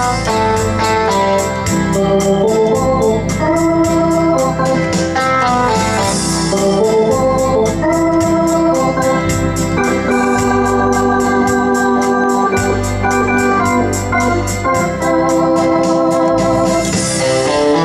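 Lowrey Prestige Virtual Orchestra home organ playing a rock tune with a B3-type organ voice in held, changing chords over the organ's automatic accompaniment, with a steady drum beat.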